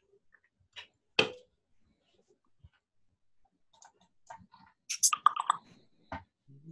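Scattered clicks and taps of a computer keyboard and mouse: one sharp, louder click about a second in, then a quick run of several clicks around five seconds in and a last one just after.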